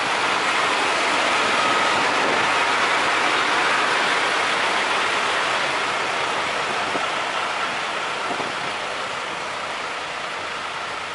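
Strong wind rushing over the microphone, a steady noisy hiss that fades slowly toward the end.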